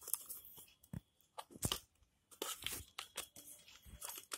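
Rubber protective cover being peeled off the hard plastic case of a digital satellite finder meter: a faint, irregular string of scrapes and clicks as the rubber rubs and pulls free of the plastic.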